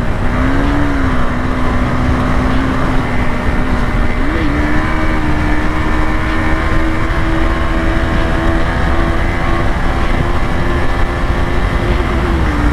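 KTM Duke 250's single-cylinder four-stroke engine running steadily as the bike rides along, with wind rumble on the microphone. Its note lifts slightly about four seconds in, holds, then dips a little near the end.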